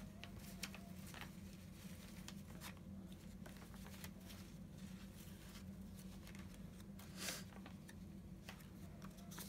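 Faint rustling and light crackles of paper scraps being handled and sorted by hand over a steady low hum, with one louder rustle about seven seconds in.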